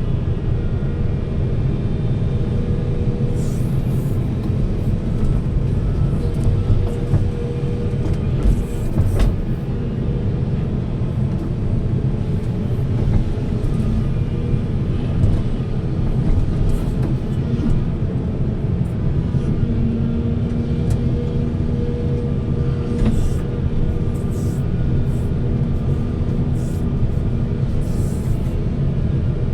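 Heavy diesel machinery running steadily with a deep, even rumble, broken by a few brief clatters.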